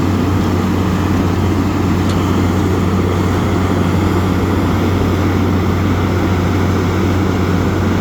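Asphalt milling machine running: a steady low diesel drone with a rough, churning noise over it, unchanging throughout.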